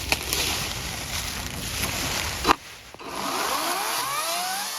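Ego 18-inch battery chainsaw being started up: steady noise, a sharp click about halfway through, then the electric motor spinning up with a rising whine that levels off.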